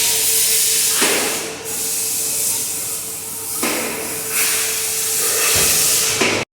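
Mahindra KUV100 petrol car running on a workshop ramp: a steady whine sits under a loud hiss. The mechanic traces the noise to the inside of the gearbox.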